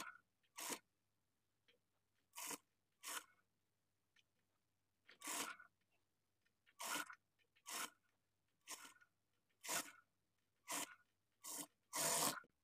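Cloth rustling and scraping in a dozen short bursts, each under half a second, at irregular gaps of roughly one to two seconds, as fabric is handled and shifted.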